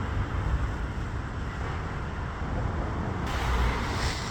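Steady low outdoor background rumble, with a rushing hiss that swells about three seconds in.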